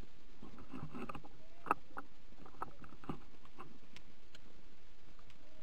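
Scattered snapping and crackling of twigs and brushing of branches as someone pushes through woodland undergrowth and fallen branches, with one sharper crack about a second and a half in. Steady hiss underneath.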